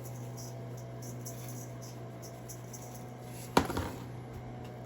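Faint rustling as Creole seasoning is shaken over raw pork chops, with one sharp click about three and a half seconds in, over a steady low hum.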